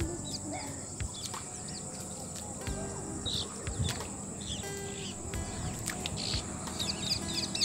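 Wetland ambience: many short bird chirps over a steady high-pitched insect drone.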